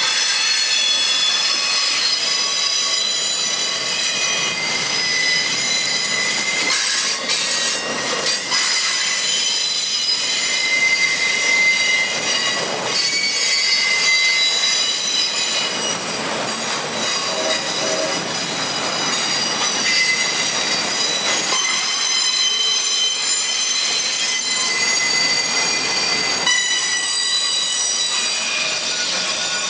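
Freight train of autorack cars rolling past, its steel wheels squealing against the rails in several shrill, shifting tones over the steady rumble of the cars.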